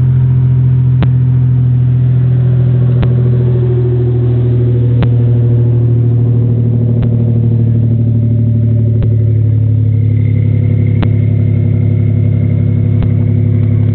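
1996 Toyota Tacoma's 3.4-litre V6 idling high, about 1,500 rpm, just after starting, heard through a 3-inch exhaust with a Thrush welded muffler and no catalytic converter. It runs as a steady, loud, deep drone.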